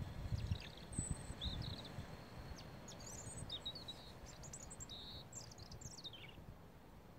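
European robin subsong: quiet, rambling phrases of high, thin twitters and short warbles in scattered snatches, ending about six seconds in. A brief low rumble at the very start.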